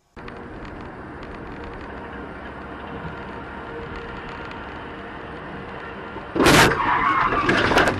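Steady road noise inside a moving car, then about six seconds in a sudden loud bang and clatter as a passing lorry strikes the car and tears off its side mirror.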